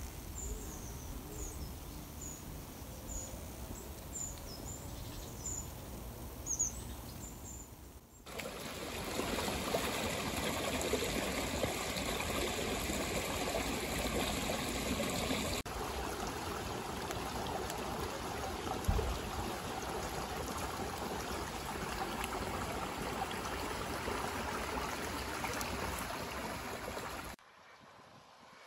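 A run of short, high bird chirps over soft outdoor background. About eight seconds in, the sound cuts to a shallow stream's running, trickling water, steady and much louder. Near the end it drops to quiet outdoor background.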